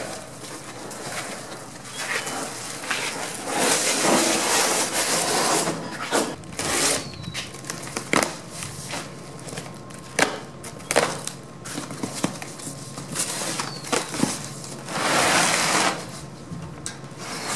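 A large cardboard shipping box being cut and pulled open: a blade slitting the packing tape, cardboard tearing and flaps scraping, with scattered knocks and rustling.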